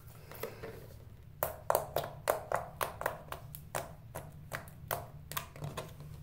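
Fingertips poking and pressing a soft blue slime against a tile floor, making a quick run of sharp clicking pops, about four or five a second, from a little over a second in until shortly before the end.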